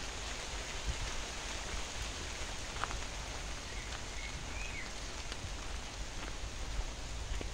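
Steady rain falling on the canal water and the trees along the towpath: a continuous even hiss with a few sharper drop ticks.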